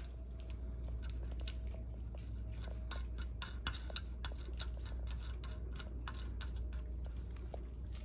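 Light, irregular clicks and taps of hand-fitted fasteners going onto the ends of a lawn edger's handle cross bar, over a low steady hum.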